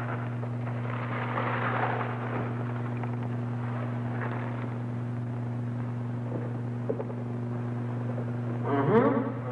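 Steady low electrical hum at two fixed pitches under faint, muffled background sound, with a brief rising pitched sound near the end.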